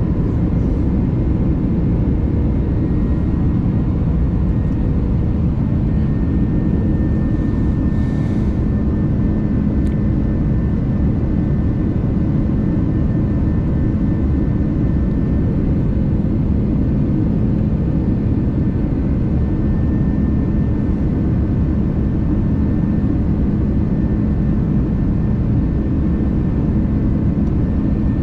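Airbus A330-300 cabin noise during the climb after takeoff: the wing-mounted turbofan jet engines running at climb power with rushing airflow, a steady low roar with a constant hum through it.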